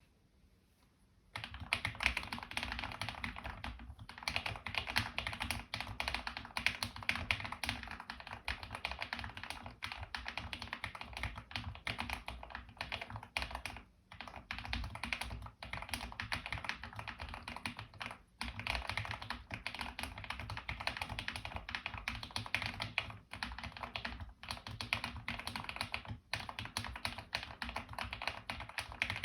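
Steady, fast typing on a custom 75% mechanical keyboard: lubed KTT Rose linear switches under doubleshot PBT OEM-profile keycaps, in an EPOMAKER EP84 case with case foam and tape. The typing starts after a second or so of quiet and runs on with a few short pauses.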